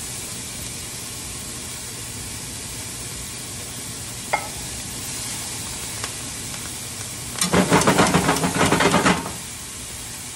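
Diced bell peppers and onion with fresh thyme sizzling steadily as they sauté in a skillet. A single click about four seconds in, and a loud burst of rapid rattling clicks lasting about two seconds near the end.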